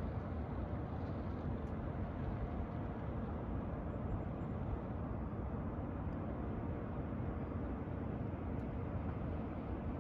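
Steady low outdoor rumble with no distinct events, even in level throughout.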